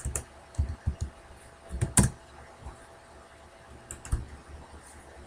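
Typing on a computer keyboard: an irregular run of separate keystrokes, the loudest about two seconds in.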